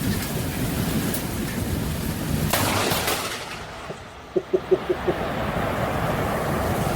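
Loud, steady rushing outdoor noise with a sharp crash about two and a half seconds in and a few short low pulses about a second and a half later.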